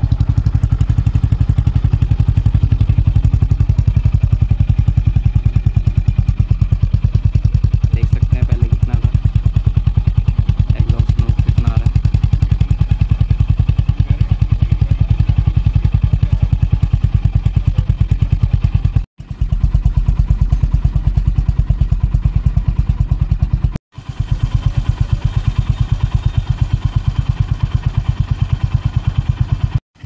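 Honda CB350 RS's air-cooled single-cylinder engine idling steadily through its stock exhaust, an even, rapid beat of firing pulses. The sound breaks off for an instant twice in the second half.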